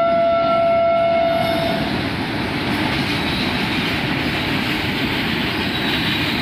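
Indian Railways electric locomotive horn sounding one held note that stops about a second and a half in, over the loud, steady rumble of a freight train's wagons rolling past.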